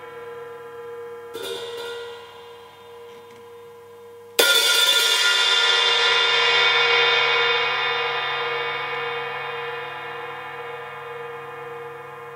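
Drum-kit cymbal ringing: a light stroke just over a second in, then a hard crash about four seconds in that rings on and slowly fades.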